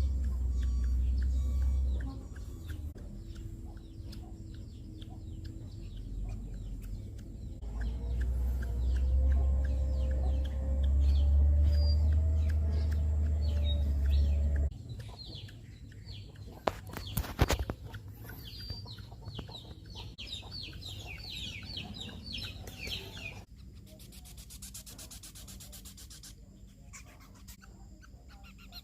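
Birds calling in short high chirps throughout, with a quick run of chirps about two-thirds of the way in. A heavy low rumble fills much of the first half, and a sharp cluster of clicks comes just past the middle.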